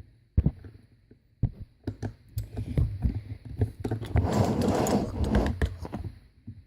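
Toys being handled, a toy fridge among them: a string of small clicks, knocks and scrapes, with a longer, denser stretch of handling noise about four to five and a half seconds in.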